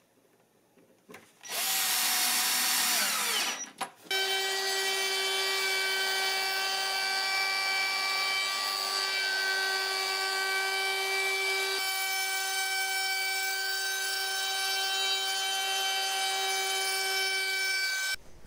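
A cordless drill-driver drives in a screw in a short burst, its whine dropping as the screw seats. Then a handheld router starts and runs steadily with a high, constant whine as it trims the edge of a board.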